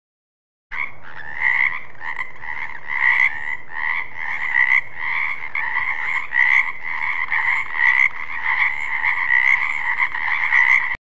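Frog croaking: a run of repeated, pulsing croaks at a steady pitch, starting suddenly about a second in and cutting off just before the end.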